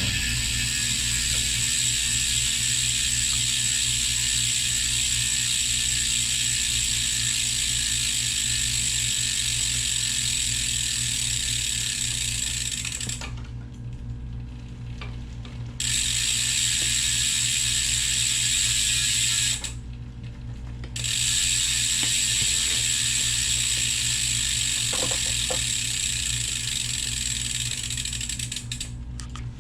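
Bicycle drivetrain running with the rear wheel spinning, the freehub pawls clicking in a steady fast ratchet as the gear shifting is tested. The sound drops away twice for a second or two, about halfway through and again about two-thirds in.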